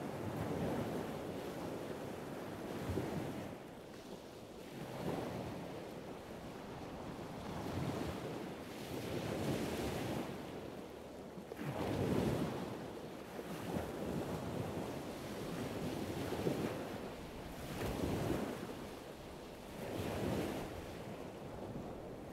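Rushing surf noise, waves washing in and swelling every couple of seconds, with no engine tone or voices.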